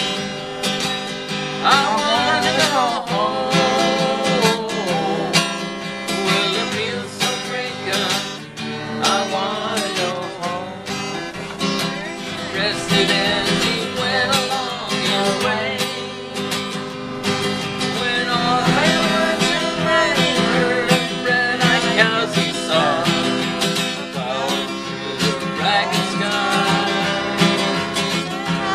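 Acoustic guitar strummed steadily, with voices singing a song along with it.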